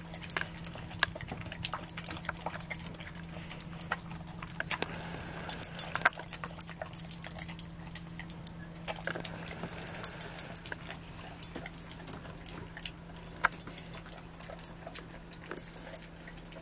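Giant schnoodle eating rehydrated raw food from a glass bowl: irregular wet clicks and smacks of chewing and licking, over a steady low hum.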